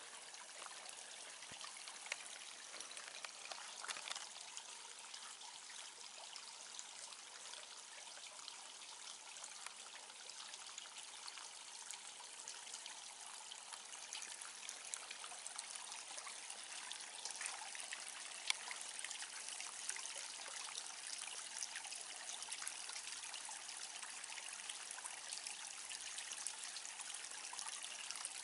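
Water from a garden pond's small stone-built stream or waterfall trickling and splashing steadily into the pond, with a fine patter of small drips.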